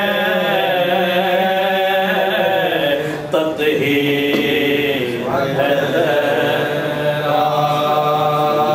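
A man's voice chanting a devotional salaam unaccompanied, in long held notes that glide up and down, with a brief pause for breath about three seconds in.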